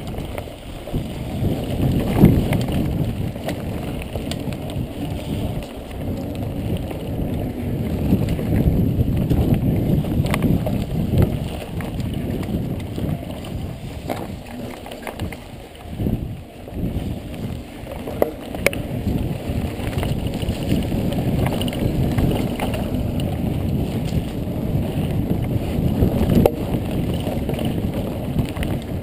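Mountain bike being ridden on a dirt trail: wind rumbling on the microphone and tyres rolling, with scattered clicks and rattles from the bike.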